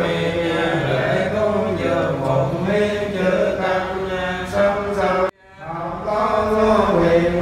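Vietnamese Buddhist monks chanting a sutra together, several male voices. The chanting breaks off abruptly a little over five seconds in and picks up again about a second later.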